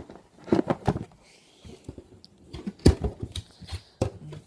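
Objects being rummaged and handled in a box: a series of sharp knocks and clatters, the loudest about three seconds in, with a soft rustle between.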